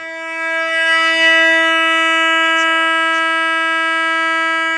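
A man's voice holding one long, steady, high note without a break, heard through a phone speaker on a video call.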